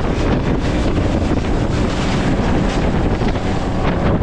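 Heavy, steady wind noise on the microphone, with rushing water from a small bass boat running at speed.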